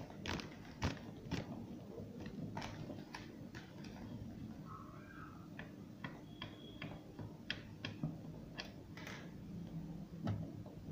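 Irregular small clicks and taps from a screwdriver and hands working at the screws in the wooden frame of a glass-cased physical balance.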